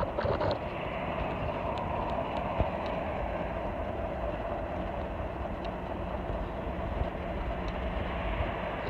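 Steady rolling noise of a bicycle ride on a paved path: tyres on the road surface with a low rumble and a few faint ticks.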